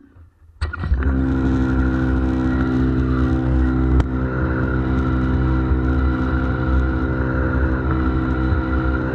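An electric pressure washer's motor and pump start up a little under a second in and then run steadily, driving water through a rotary surface cleaner on block paving. There is a sharp click about four seconds in.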